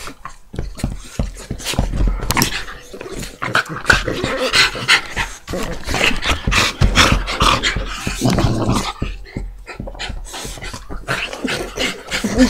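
Dog panting, with irregular short clicks and knocks throughout.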